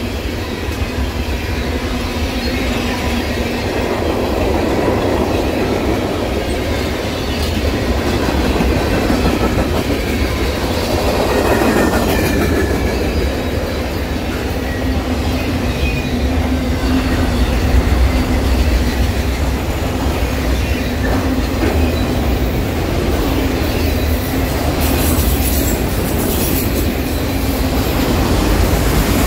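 Loaded freight train cars rolling steadily past close by, first tank cars and then autorack cars, their steel wheels clattering over the rails, with light squeals of wheel flanges on the rail now and then.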